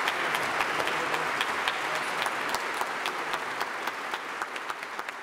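Audience applauding, a dense patter of many hands clapping that fades out gradually.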